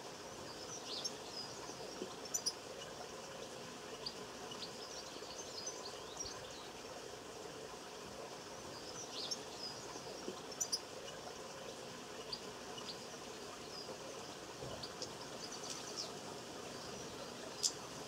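Small songbirds calling in short, scattered high chirps over a steady background hiss. A few sharper, louder notes stand out: a quick pair twice, and one more near the end.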